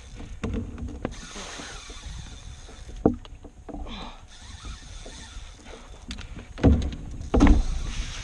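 Fishing kayak being towed through the water by a large hooked fish, with water rushing along the hull. There is a sharp knock about three seconds in and two loud thumps against the boat near the end.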